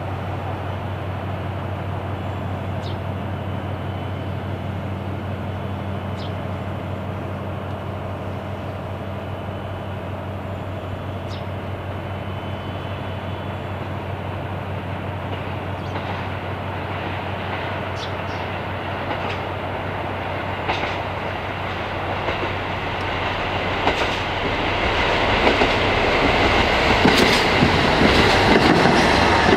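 Diesel-hauled freight train, the Sekihoku Line onion train, approaching. A steady low locomotive engine drone is heard at first with a few scattered clicks. Over the last several seconds it grows louder and rougher as the wheel clatter on the rails comes in.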